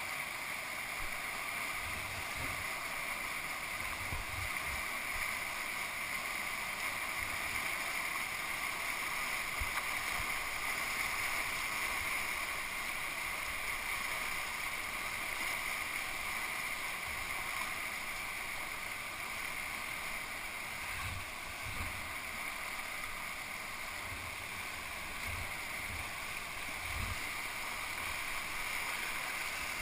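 Rushing whitewater of a high, fast river rapid, a steady hiss of churning water with no let-up, and a few dull low thumps scattered through it.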